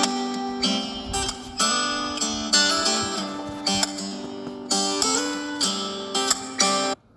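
Phone ringtone: a melody of plucked acoustic-guitar notes that cuts off abruptly near the end.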